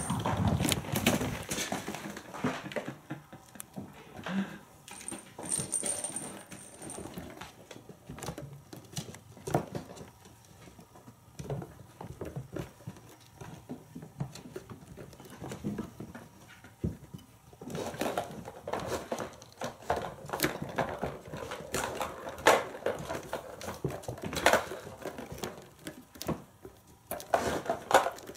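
Kittens playing on a wooden floor: scattered taps, clicks and small clattering knocks of paws and claws, sparser in the middle and busier over the last ten seconds.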